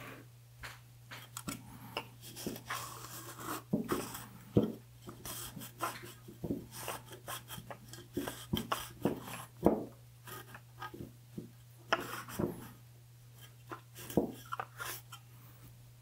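Cloth rag scrubbing the rim of a speaker's metal frame, wiping off the old surround residue with alcohol: irregular rubbing and scraping strokes, with a steady low hum underneath.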